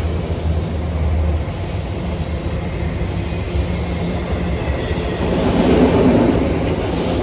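CSX freight train rolling by: a steady low diesel locomotive drone under the rumble of wheels on rail, swelling briefly about six seconds in.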